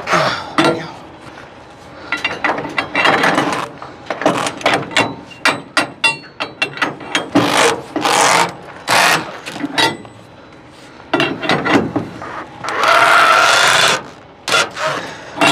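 Ratchet binder on a load-securement chain being cranked tight by hand, with a long run of sharp ratchet clicks and longer rasping, grinding strokes in between as the handle is worked.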